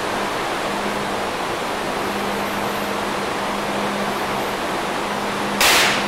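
Steady, fairly loud rushing hiss with a faint low hum under it. Near the end comes a short, sharp burst of hiss, the loudest sound, fading within about half a second.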